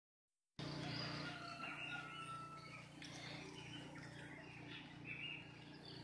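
Dawn chorus of many birds chirping and calling, starting suddenly about half a second in, with one bird holding a long level whistle for about a second and a half, over a steady low hum.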